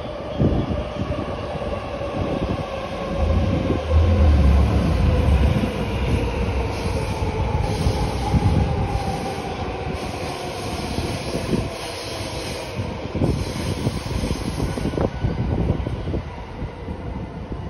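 Yamanote Line E235-series electric train passing on an elevated track: wheels rumbling and knocking over the rails, with a motor whine that slowly falls in pitch. A heavier low rumble swells for a couple of seconds a few seconds in.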